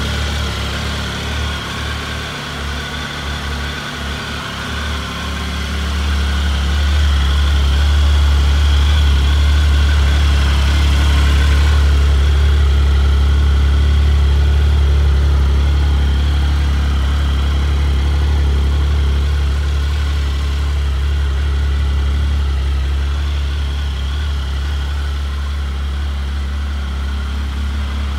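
Triumph Sprint GT 1050's three-cylinder engine idling steadily, a low even hum with no change in revs. It gets louder for a stretch in the middle, when heard close to the exhaust silencer.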